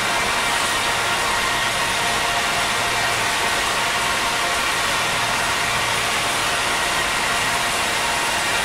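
Large indoor show fountain's water jets and spray rushing with a steady, even noise.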